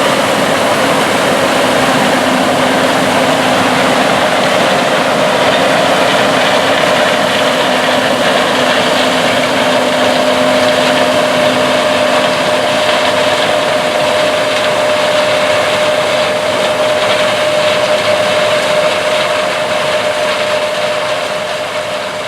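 John Deere S690 combine running steadily while harvesting corn: engine and threshing machinery noise with a faint steady whine, fading off in the last couple of seconds.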